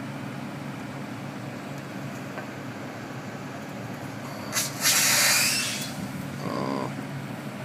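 Crane engine running steadily with a low drone. About five seconds in, a click and then a loud hiss for about a second, followed by a shorter, softer rush of noise.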